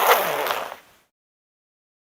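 A clothing zipper being pulled in one quick raspy stroke that tails off about a second in.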